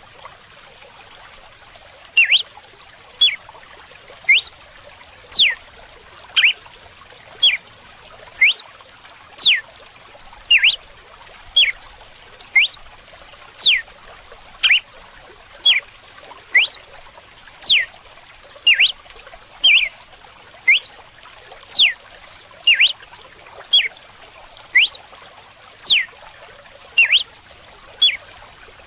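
Red-cowled cardinal (galo-de-campina) singing its whip-like 'açoite' song: short, sharp whistled notes about once a second, most sweeping steeply down in pitch, some rising or given as quick pairs, starting about two seconds in. Underneath is a steady trickle of running water.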